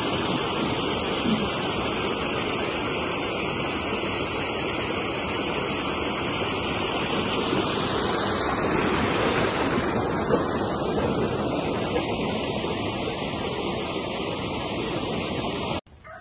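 Shallow rocky stream rushing over small cascades, a steady even rush of water that cuts off suddenly near the end.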